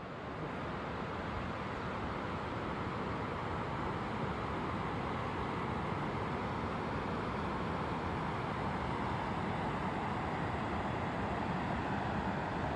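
Mountain stream of milky glacial meltwater rushing over a stony bed: a steady, continuous rush of water.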